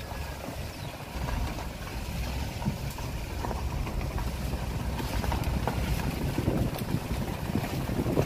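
A vehicle's engine running steadily while moving, with low wind rumble on the microphone.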